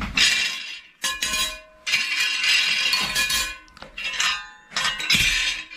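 Cut-out metal letters clinking and scraping against each other and against a metal base as they are handled and laid in place, in several separate bursts with a brief metallic ring after some of them.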